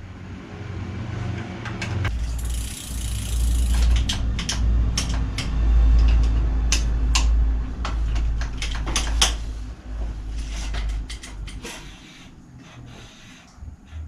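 Irregular metal clicks and clanks from tools working on a bicycle in a repair stand, over a low rumble from about two to eleven seconds in, with a brief hiss near the start of the rumble.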